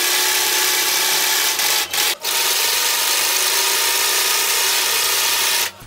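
Electric sewing machine running steadily as it stitches a seam through layered fabric, with two brief pauses about two seconds in; it stops near the end.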